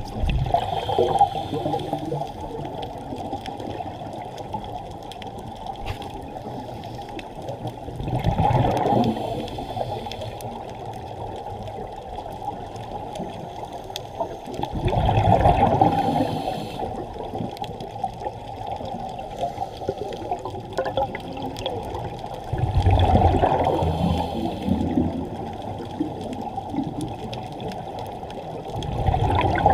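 Sea waves washing in over a steady wash of water, each wave surging louder about every seven seconds.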